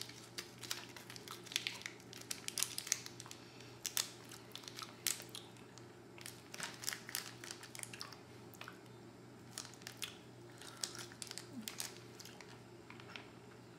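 Candy wrapper being crinkled and pulled open by hand: a run of irregular crackles.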